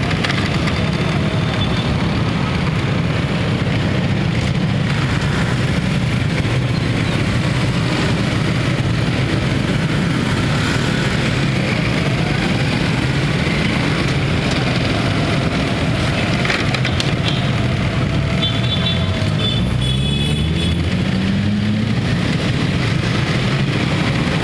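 City road traffic on a wet road: cars and motorcycles passing with a steady engine rumble and tyre hiss. Near the end one vehicle's engine rises in pitch as it pulls away.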